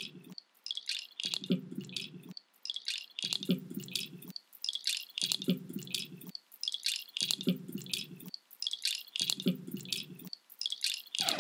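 Experimental electronic music played from a DJ laptop set: a looped pattern of high, scattered clicks over a low filtered pulse that returns about every two seconds.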